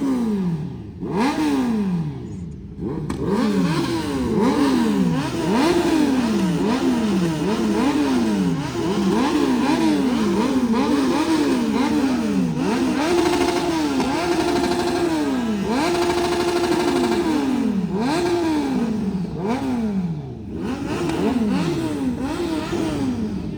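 Superbike engine with a loud aftermarket exhaust revved over and over, the pitch climbing and dropping back about once a second, and twice held steady at high revs for about a second.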